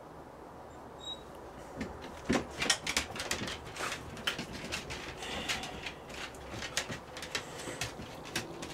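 Irregular small clicks, creaks and rustles of movement close to the microphone, a few louder knocks among them, starting about two seconds in over a faint room hum.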